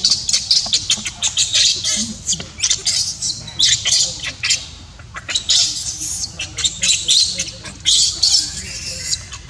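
Baby macaque screaming in repeated shrill, high-pitched distress cries, some short and choppy, some drawn out, while its mother holds it down.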